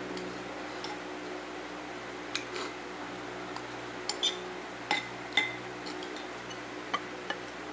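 Cutlery clinking against a dish while eating, several light clinks scattered irregularly, the sharpest about five seconds in, over a steady low hum.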